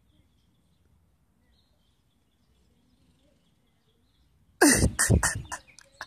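Faint bird chirps, then about four and a half seconds in a loud vocal outburst from a person. The pitch falls, and the outburst breaks into a run of short bursts that space out and fade.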